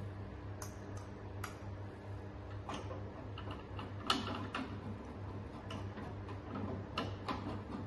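Irregular clicks and taps of plastic parts being handled and fitted onto the top of a hydrofacial machine's column, the sharpest about four seconds in, over a steady low hum.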